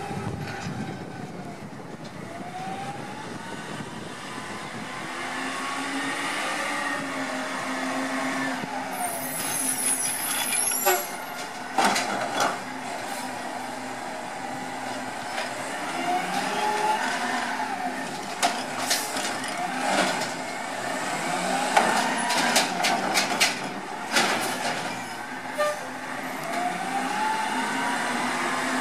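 Mack cabover garbage truck's diesel engine running and repeatedly revving up and down as its automated side-loader arm cycles, with sharp clanks and bangs of carts being handled and dumped. An air-brake hiss comes about ten seconds in.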